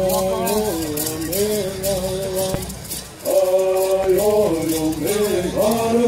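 Men singing a Southern California bird song together, in chanted phrases, to the shaking of gourd rattles. The song breaks off briefly about halfway through, then the next phrase begins.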